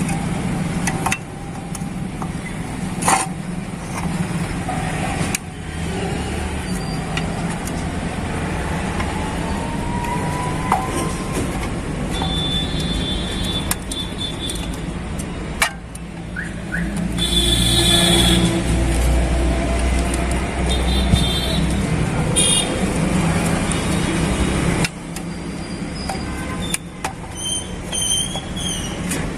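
Road traffic running past with several short horn toots; a vehicle passes louder about two-thirds of the way in. Scattered metallic clicks and knocks come from hand tools working on the scooter's clutch side.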